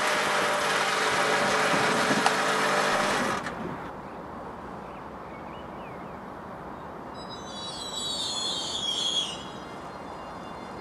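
Loud noise with a steady drone that stops abruptly a little over three seconds in. Then comes the quieter steady hum of an electric regional train approaching, with a brief high squeal at about eight seconds.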